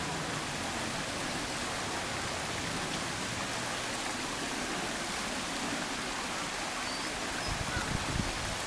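Steady rush of flowing river water, an even hiss with no clear separate splashes. Low rumbles begin near the end.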